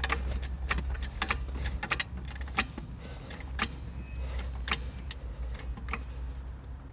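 Irregular metallic clinks and knocks of a jack and tools being worked under a car's front suspension, raising the spring to free the anti-roll bar. A steady low rumble runs beneath; the clinks come several a second at first and thin out later.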